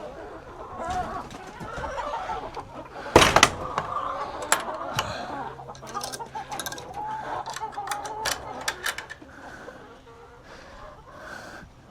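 Hens clucking. A loud short burst comes about three seconds in, followed by a run of sharp taps, and the clucking grows quieter near the end.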